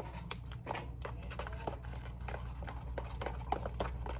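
Light, irregular clicks and taps of a utensil working a thick mixture in a bowl, over a steady low hum.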